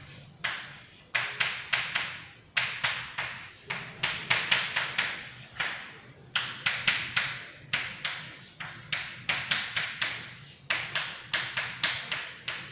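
Chalk tapping and scratching on a chalkboard while an equation is written: an irregular run of short, sharp strokes, two or three a second, each fading within a fraction of a second.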